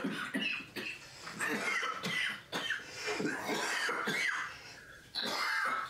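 A sick man coughing in a prolonged fit, one harsh cough after another, from a TV drama's soundtrack.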